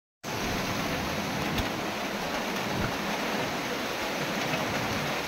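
Heavy tropical-storm rain and strong wind, a steady rushing hiss, with wind buffeting the microphone in a low rumble.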